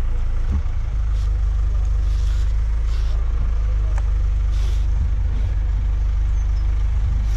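Bucket truck's engine running steadily, a low rumble, with several short hisses over it.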